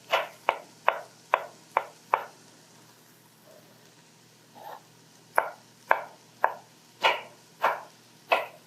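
Knife chopping preserved lemons on a cutting board: a run of six even strokes, about two and a half a second, then a pause of about three seconds and six more strokes.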